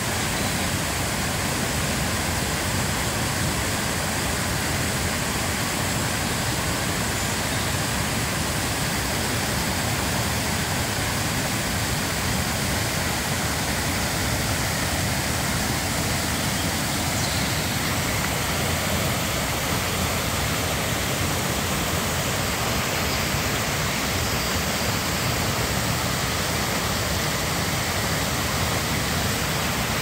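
Forest stream swollen after rain, rushing in white water over a small cascade and fallen logs: a steady, loud rush of water.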